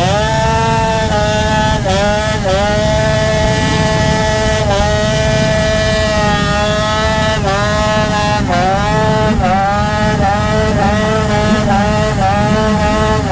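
Small pit bike engine held near the top of its revs in a burnout, the pitch dipping briefly and climbing back again and again, the dips coming more often in the second half.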